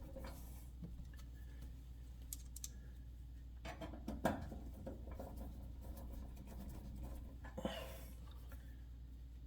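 Light scattered clicks and scrapes of small screws and parts being handled as screws are started into the range's control panel, with a cluster of clicks about four seconds in and a short scrape near the end.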